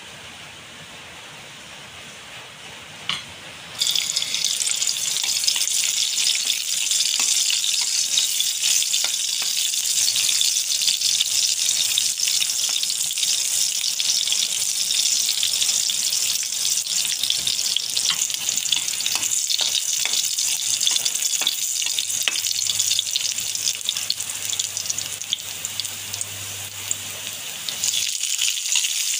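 Chopped garlic sizzling in hot oil in a wok, the loud sizzle starting suddenly about four seconds in when the garlic goes in, after a quiet hiss of the heating oil. Near the end the sizzle jumps louder again as halved red onions are added.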